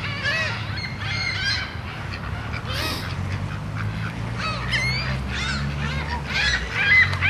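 A flock of gulls and waterfowl calling loudly over one another, a dense run of short squawks and honks from birds crowding in to be fed. A low steady hum comes in underneath about halfway through.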